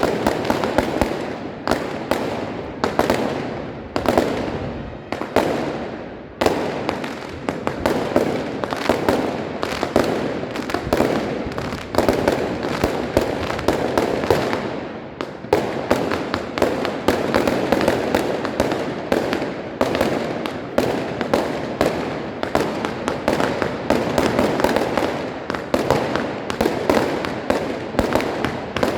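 Fireworks and firecrackers going off without a break, one sharp bang after another with echoing tails. The bangs come about a second apart at first, then thicken about halfway through into a dense barrage of several bangs a second.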